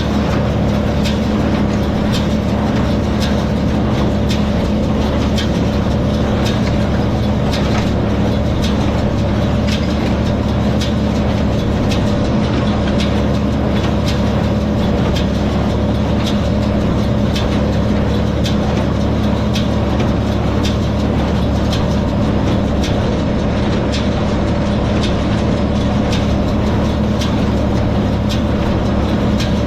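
Tractor engine running steadily while it pulls a small square baler through hay, with a sharp, regular knock about once a second from the baler's working stroke.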